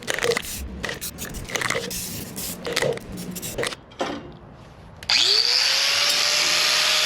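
A run of uneven hand scraping or sanding strokes, then an electric power tool switches on about five seconds in, its motor whine rising quickly and settling into a steady run.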